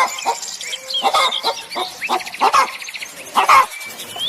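A dog barking a few times in short bursts, with birds chirping in the background.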